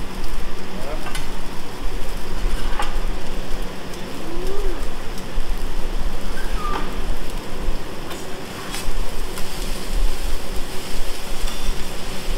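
Food sizzling steadily on a hibachi griddle, with sharp metal clicks of the chef's spatulas against the steel plate every second or two.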